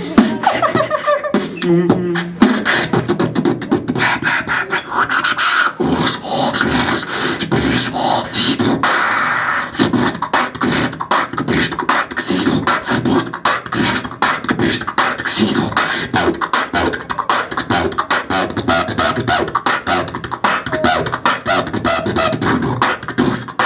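Beatboxing into a handheld microphone: rapid mouth-made kick, snare and click sounds, with a couple of held low tones in the first seconds and a fast, even beat from about ten seconds in.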